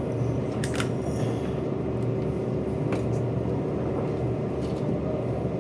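A machine running with a steady low rumble and a constant hum, with a few light clicks over it.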